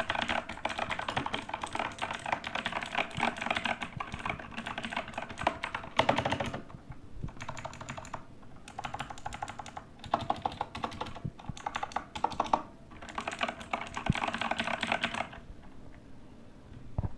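Typing on a mechanical keyboard with Outemu Blue clicky switches: fast runs of sharp key clicks in several bursts separated by short pauses, easing off near the end.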